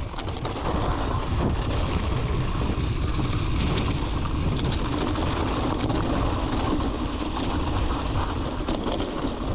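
Mountain bike ridden over rough off-road trail: a steady rumble with many small rattling clicks.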